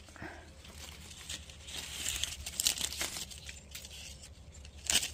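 Persimmon leaves and twigs rustling as a hand reaches into the tree and pulls ripe fruit off the branches, with a few sharp snaps, the loudest near the end.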